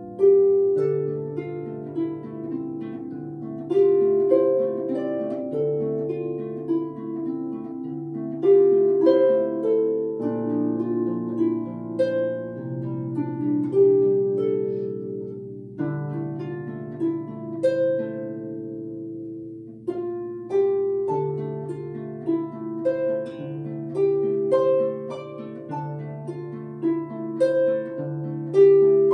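Solo harp playing a slow piece: plucked notes ring on over a repeating low bass pattern, with a short lull a little before the twenty-second mark.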